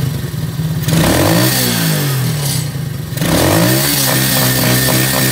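Single-cylinder four-stroke 125 cc ATV engine revved by blips of the throttle, the pitch dropping back toward idle after each, twice. The carburettor's mixture screw has just been set, and the engine picks up and returns cleanly.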